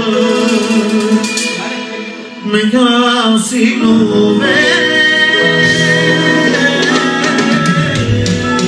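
Band music with a male singer, a Balkan Romani song performed live; the music thins briefly about two seconds in, then comes back in full.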